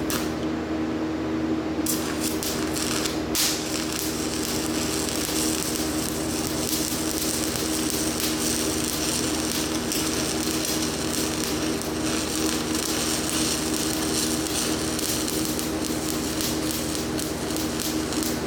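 Stick-welding arc from a Certanium 889 rod on cast iron, a steady crackling hiss starting about two seconds in, over the constant hum of the welding machine.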